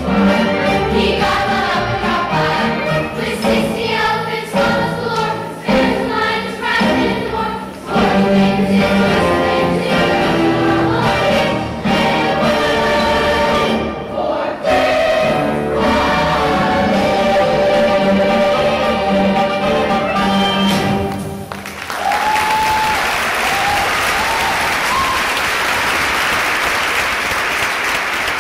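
Chorus singing a show tune with orchestral backing. A little over twenty seconds in, the song ends and an audience breaks into applause with cheering and whoops.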